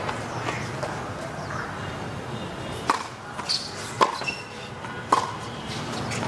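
A tennis ball bounced three times on a hard court, about a second apart, in a server's pre-serve routine, over a low murmur of spectators.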